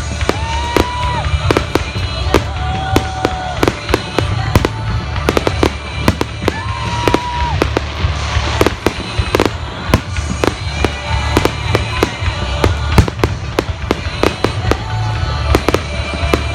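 Aerial fireworks shells bursting in rapid succession, several sharp bangs a second over a deep rumble, with music playing alongside.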